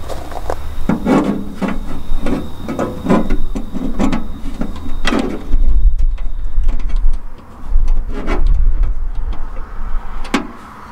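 Hand screwdriver driving Phillips screws into the lockbox's pressed-in nuts to fasten a tray bracket, with metal scraping and clicking. A quick run of rasping turns comes first; after about five seconds the scrapes thin out over a low rumble.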